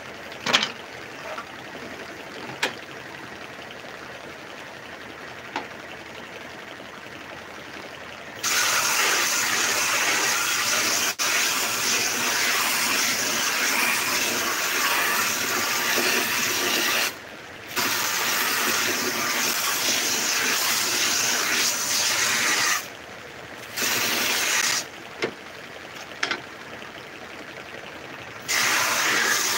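Homemade belt sander running, with long stretches of loud rasping hiss as wood pieces are pressed against the moving sanding belt. The first stretch starts about eight seconds in. There are brief breaks twice and a longer lull near the end. Before it, only the quieter sound of the belt running unloaded, with a few sharp knocks.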